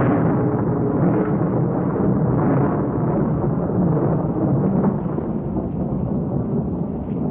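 A long rumbling sound effect: a steady roar of noise with no clear pitch, like thunder or a drawn-out explosion, easing off slightly after about five seconds.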